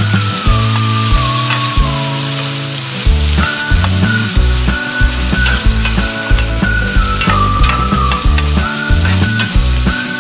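Tomatoes, onions and meat sizzling in a stainless steel pan as a metal spoon stirs them, with short clicks and scrapes of the spoon against the pan. Background music with a whistled melody plays under it.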